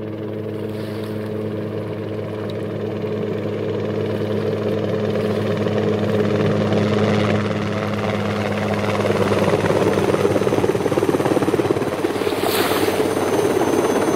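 Helicopter overhead: rapid rotor chop over a steady droning engine hum, growing gradually louder over the first several seconds.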